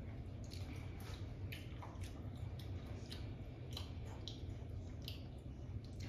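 Faint wet squishing and clicking of a mouthful of raw lime being chewed: a string of short, irregular clicks.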